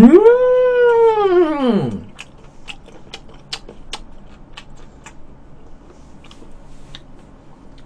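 A drawn-out, high-pitched vocal sound that rises and then falls over about two seconds, followed by faint scattered clicks of eating and chewing sushi.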